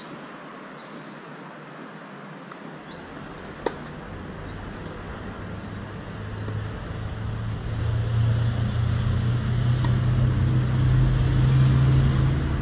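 A motor vehicle's engine running as a low steady drone that swells from about halfway through and stays loud to the end. Small birds chirp now and then above it, and there is a single sharp knock a few seconds in.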